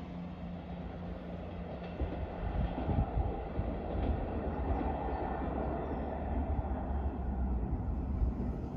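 Diesel multiple-unit passenger train running on the line: a steady low rumble with a few faint clicks about two to three seconds in.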